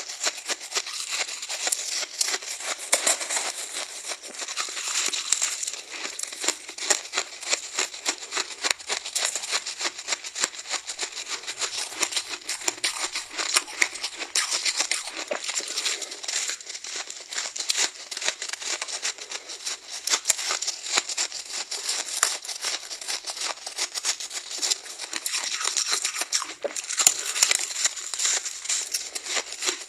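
Soft frozen ice being bitten and crunched, a dense, continuous run of crisp crackling crunches.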